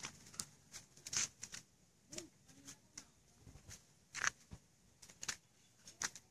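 Irregular scuffs and light rustles of movement on dry dirt ground scattered with leaves and twigs, the sharpest about a second in and again about four seconds in.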